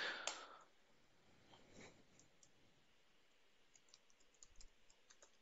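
Near silence, broken by a few faint, scattered clicks from a computer keyboard, more of them towards the end.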